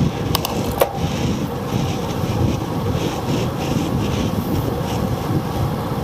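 Wind buffeting the microphone of a camera zip-tied to bicycle handlebars at about 30 mph, a steady low rumble mixed with tyre noise on the asphalt. Two sharp clicks come within the first second.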